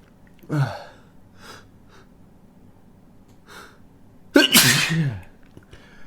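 A man sneezing: a short, sharp voiced catch about half a second in, two faint breaths, then a loud, drawn-out sneeze about four seconds in that falls in pitch.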